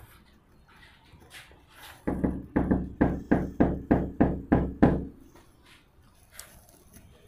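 Rapid knocking on a front door: about ten loud, evenly spaced knocks, about three a second, each with a short ringing tail, starting about two seconds in and stopping after about three seconds.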